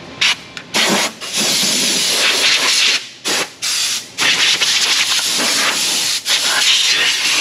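Compressed-air blow gun hissing in a series of loud blasts with brief breaks, the longest about two seconds, blowing dirt and flaking rust out of a pickup's front suspension.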